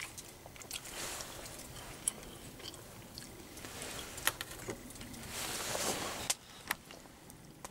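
A spoon clicking and scraping against stainless steel cookware in scattered light taps, with two longer stretches of soft rustling or scraping.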